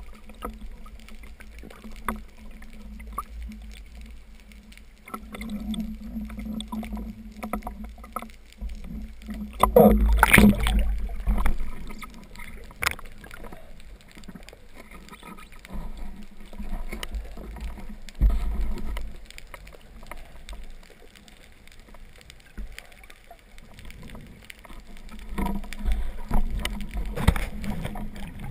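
Water noise against the camera during a spearfishing dive: a steady low rumble and gurgling, a louder rush about ten seconds in, and a few sharp knocks.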